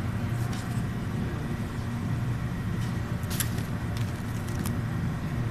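Steady low background hum, with two brief clicks from a plastic-wrapped cheese pack being handled, a little past the middle and again about a second later.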